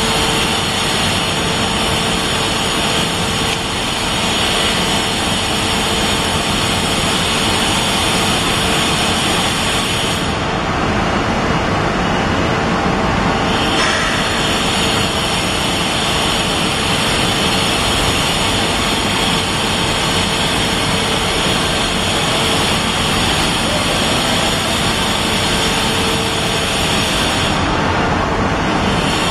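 Steady, loud rushing noise with a faint steady hum, unchanging throughout.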